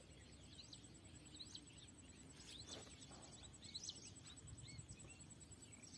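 Faint birds chirping: many short, quick calls scattered over a low outdoor background hum.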